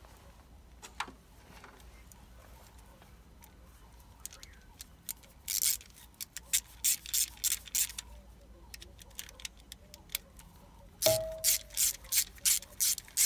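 Hand ratchet with a socket turning the bolt of a battery terminal clamp, clicking in short rasping bursts about three a second from about five seconds in. After a pause it starts again near the end, opening with a sharp metallic clink that rings briefly.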